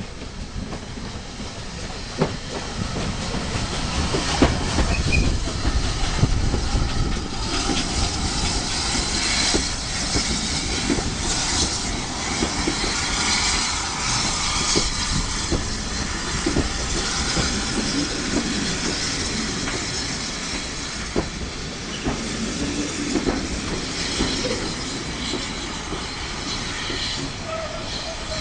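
Railway train running in, its wheels clattering over the rail joints and growing louder over the first few seconds. High wheel squeal runs through the middle stretch.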